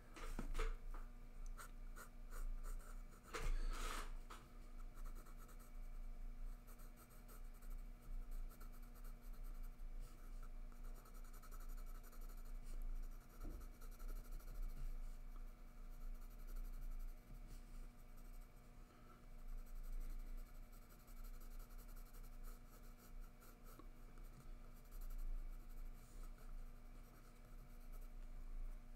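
Graphite pencil shading on sketchbook paper: many quick, scratchy back-and-forth strokes, with a louder burst of strokes about three seconds in.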